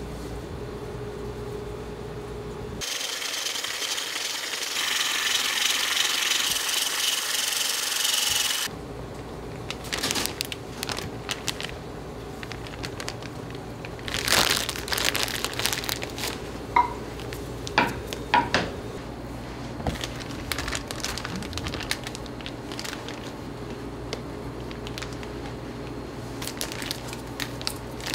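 Bakery kitchen work: about six seconds of loud steady hissing early on, then irregular handling noises and knocks with a few light metallic clinks.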